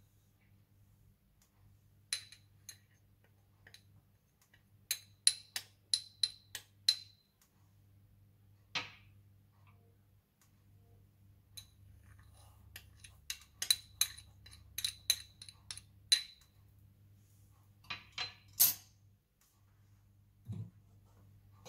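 Small kitchen utensils clicking and clinking in quick runs of several sharp, light taps, over a faint steady hum; one soft thump near the end.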